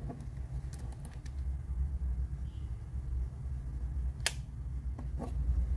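Light plastic clicks as an AirPods charging case and its charging cable are handled, the sharpest one about four seconds in, over a low steady rumble.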